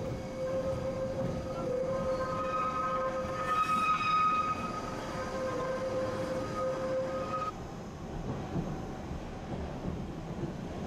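Gornergratbahn electric rack-railway train heard from on board while climbing, running with a steady rumble and a high whine. The whine stops about seven and a half seconds in, leaving the rumble.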